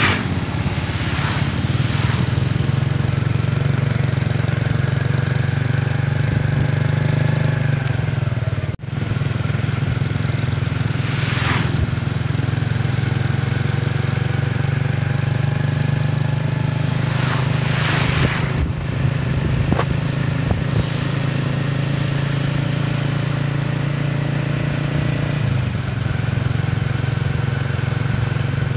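Motorcycle engine running steadily while riding, a constant low hum. There is a brief dropout about nine seconds in, and a few short hissing swells come and go.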